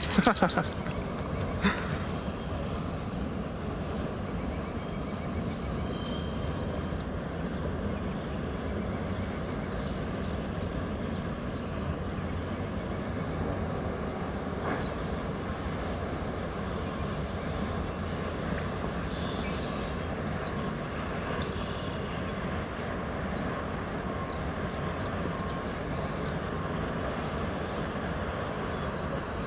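Steady rush of vehicles pushing through deep floodwater on a street, tyres and wakes splashing, under rain. A short high chirp sounds five times, about every four to five seconds.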